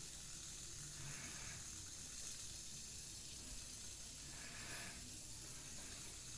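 Hand-held fidget spinner spinning freely on its ball bearing, the best bearing of the batch: a faint, steady hiss.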